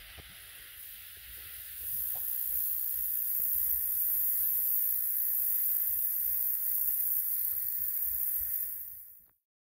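A steady high-pitched hiss with faint scattered knocks beneath it. It swells about two seconds in and fades out shortly before the end.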